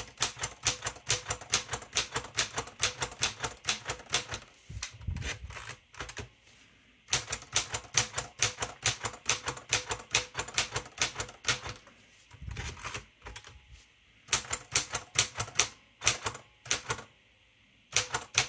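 Keys of a Royal Deluxe manual typewriter struck in quick runs, the typebars clacking about five times a second. Three runs of typing, with short pauses between them.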